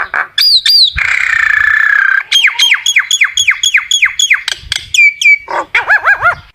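Common myna singing: two high whistles, then a harsh rasping note of about a second. It follows with a quick run of about a dozen falling whistled notes, and ends with a fast chattering burst.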